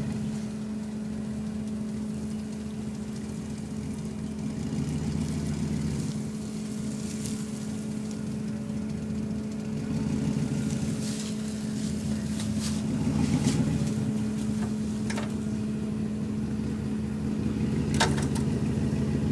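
Truck engine idling steadily while the truck is slowly manoeuvred, with a couple of sharp clicks or knocks late on.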